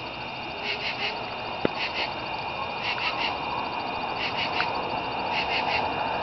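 Frogs calling in a night chorus: short, rapid pulsed trills repeat about once a second over a steady high-pitched drone. A single sharp tap sounds about a second and a half in.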